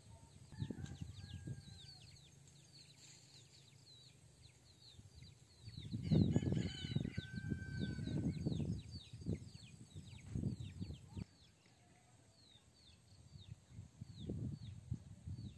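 Outdoor farm ambience: a rooster crowing once over many small birds giving quick falling chirps, with low gusts of wind on the microphone loudest in the middle.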